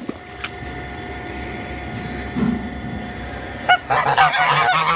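Domestic geese honking. The first few seconds are fairly quiet, then a single honk and a loud burst of several geese honking over one another near the end.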